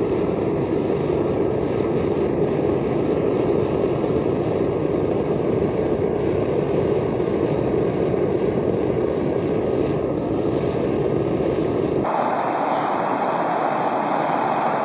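Propane burner of a small melting furnace running with a steady rushing noise while it heats a crucible of aluminum cans. About twelve seconds in, the noise turns suddenly thinner and higher.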